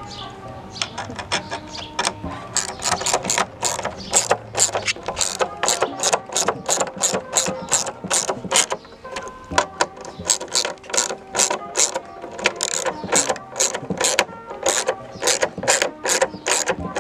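Hand ratchet clicking as it drives in the fastener of a cup/rod holder bracket, in quick even strokes of about three clicks a second, with a short pause about halfway through.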